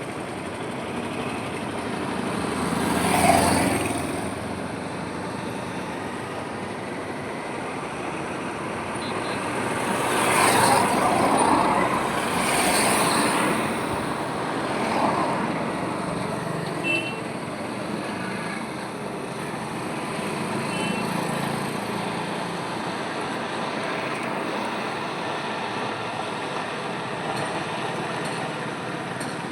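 Highway traffic: a steady wash of road noise from passing cars and trucks, with vehicles passing close about three seconds in and again around ten to thirteen seconds.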